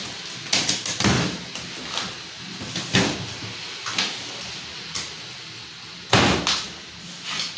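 Plastic packing straps being cut and pulled off a cardboard appliance carton: a string of sharp snaps and knocks roughly a second apart, the loudest and longest about six seconds in.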